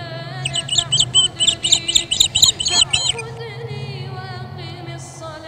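A bird chirping quickly and high, about four chirps a second, for roughly the first three seconds, over soft background music with sustained tones and a low steady drone.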